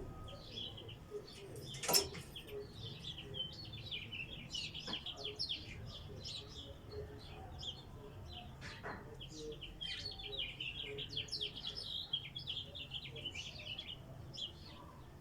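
Small birds chirping in quick runs of short, high calls, with a single sharp click about two seconds in.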